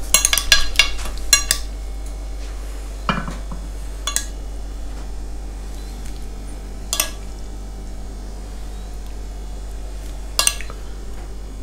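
Metal serving spoon and fork clinking against ceramic plates and serving dishes as food is served. A quick run of clinks comes at the start, then single clinks every few seconds, over a steady low hum.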